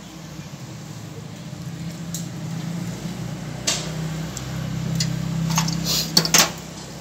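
Plastic wiring connectors and cables being handled and pushed together, with sharp clicks, the loudest a quick pair near the end. A low hum runs underneath and grows louder toward the end.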